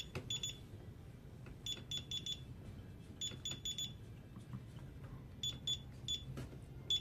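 DSC alarm keypad giving short, high key-press beeps in quick runs of two to four, every second or two, as programming section numbers are keyed in.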